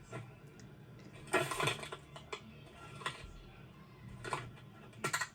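A few short film sound effects, knocks and clatters: a cluster about a second and a half in, lighter ones around three and four seconds in, and a sharp one near the end.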